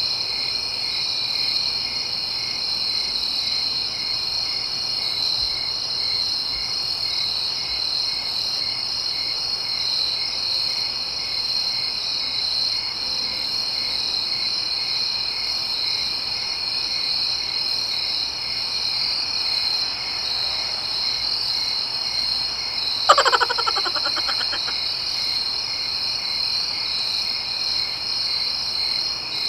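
Steady night chorus of frogs and insects, unchanging throughout. About three-quarters of the way through, a brief sound falls in pitch.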